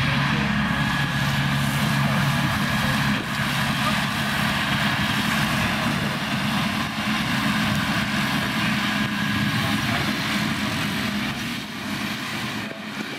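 Massey Ferguson tractor's diesel engine running steadily under load while powering a Fella front-mounted mower cutting grass, a constant low hum that gets a little quieter near the end.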